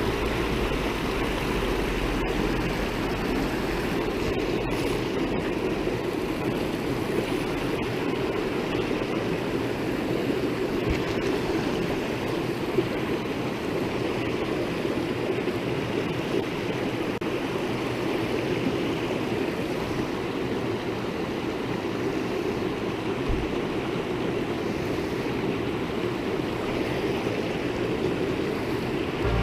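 Small mountain creek rushing steadily over rocks, an even wash of flowing water.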